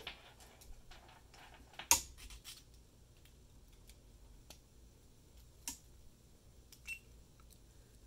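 Faint handling noise of a small camera and its cable plugs being fitted together on a desk: scattered light clicks and knocks, the sharpest about two seconds in.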